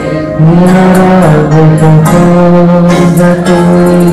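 Instrumental interlude of a hymn accompaniment: a melody over held low notes, with a light, regular beat.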